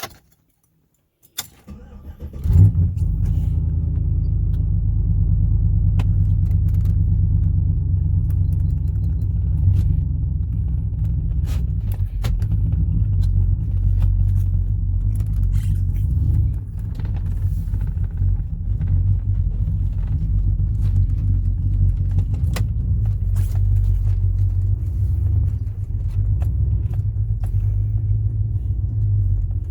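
Trailblazer SS's 6.0-litre V8 starting about two seconds in, then idling steadily with a low rumble. Faint clicks come now and then over the idle.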